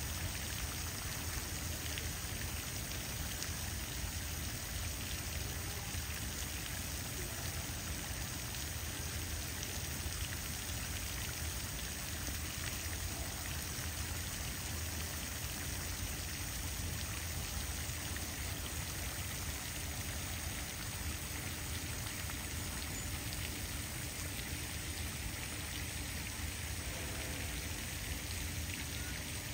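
Floating pond fountain spraying water that falls back onto the pond surface in a steady, rain-like patter, with a low rumble underneath.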